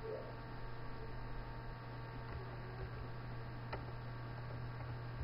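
Steady low electrical hum on the recording, with a single faint click about three and a half seconds in.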